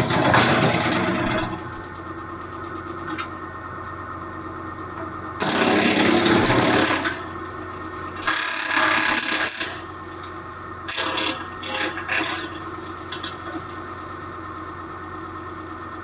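Hydraulic wood chipper run off a skid steer's hydraulics, with a steady engine and pump hum. Loud, noisy crunching bursts come four times, each a second or two long, as branches are fed in and chipped.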